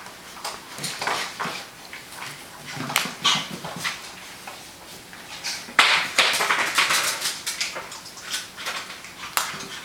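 Six-week-old puppies' paws pattering and claws clicking on the floor as they run about, in quick irregular clicks that bunch into a busier stretch past the middle, with an occasional puppy whimper among them.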